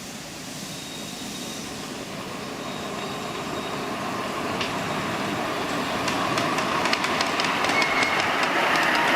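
Miniature railway train running on the track and growing louder as it approaches, its wheels clicking over rail joints in the last few seconds, with a brief squeal of wheel on rail.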